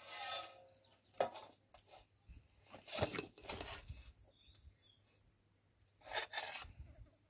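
Metal ladle scraping and clinking against a metal cooking pot and a steel plate as cooked chicken rice is scooped out and dropped onto the plate. It comes as a handful of short scrapes and knocks with gaps between them.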